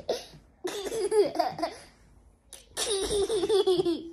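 A toddler boy laughing hard in three high-pitched bouts, with short pauses between them.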